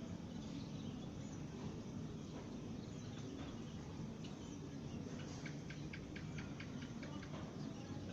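Eurasian tree sparrows chirping, with a quick run of short chirps, about five a second, from about five seconds in, over a steady low rumble.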